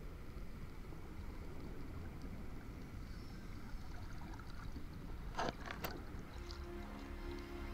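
Muffled underwater ambience picked up by a camera beneath the surface: a steady low rumble of water. Two short hissing bursts come a little past halfway, and soft sustained music notes come in near the end.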